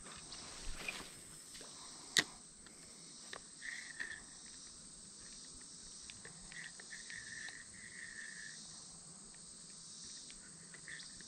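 Insects chirping steadily in summer woods, with a few short higher chirps, and one sharp click about two seconds in.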